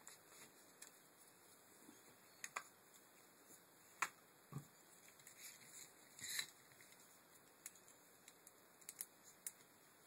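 Faint handling noises of a car window regulator being reassembled by hand: scattered small clicks and short rustles of its cables and plastic cable drum, the sharpest click about four seconds in.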